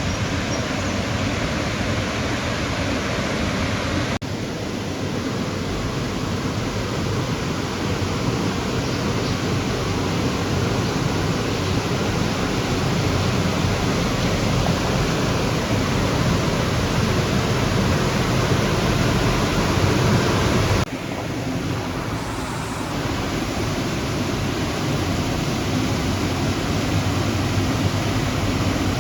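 Steady loud rush of runoff water pouring into the lake after heavy rain. The rush shifts abruptly about four seconds in and again about eight seconds before the end.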